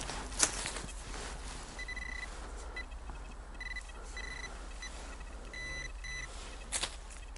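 XP Deus metal detector sounding a string of short beeps, all at the same pitch, signalling a target under the coil. A sharp knock comes about half a second in and another near the end.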